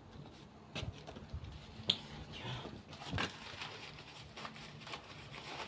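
Scattered light clicks and knocks of things being handled at a wood-stacked fire pit, the sharpest click about two seconds in.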